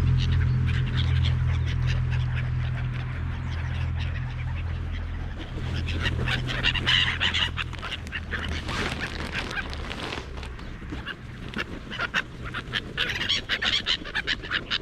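A flock of gulls, herring gulls among them, squawking and calling in harsh bouts, busiest about halfway through and again near the end. A low steady hum underneath fades out about halfway through.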